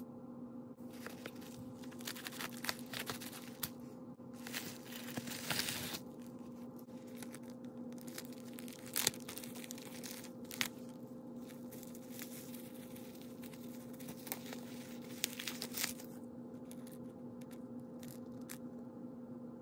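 Scissors cutting open a padded paper mailer, then the crinkling and tearing of a plastic bubble-wrap pouch being pulled open and handled, in irregular rustles with a few sharp clicks. A steady low hum runs underneath.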